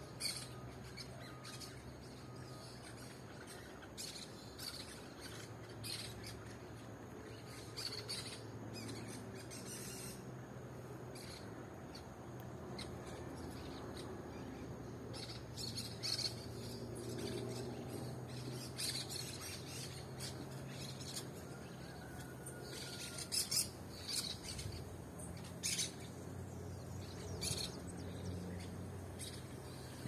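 A flock of parakeets calling from the treetops: many short, high chirps and squawks scattered throughout, coming thicker and louder in the second half.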